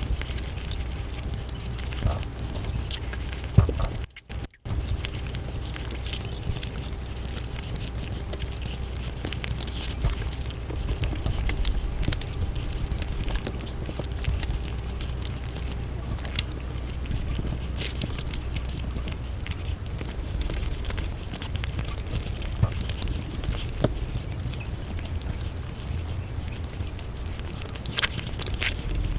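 Sped-up eating sounds: rapid wet chewing and mouth clicks, crackly and fast, over a steady low hum. The sound drops out briefly about four seconds in.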